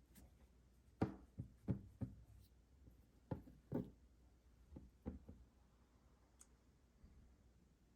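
Light knocks and taps of candy and chocolate packages being handled and set down, about nine irregular taps in the first five and a half seconds.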